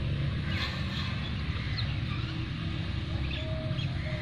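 Hand-milking: a few short hissing squirts of milk into a metal bucket over a steady low rumble.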